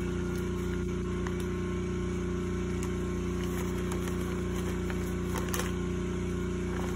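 A steady low mechanical hum, with a few faint crinkles and ticks of butcher paper being unwrapped from a roast on a metal sheet pan.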